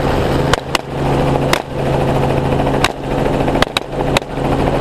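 Helicopter running steadily in flight while a gunner fires a semi-automatic rifle about seven times in quick, irregular succession.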